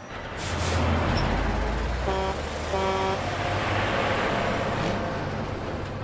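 A vehicle engine rumbles low, building up about half a second in, with two short horn toots about two and three seconds in.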